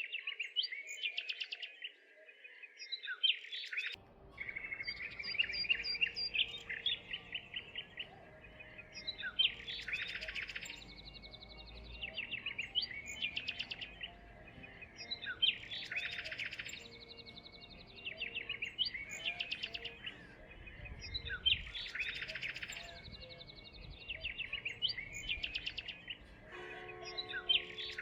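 Small songbirds chirping and singing in quick trills, with a similar burst of calls coming back about every three seconds.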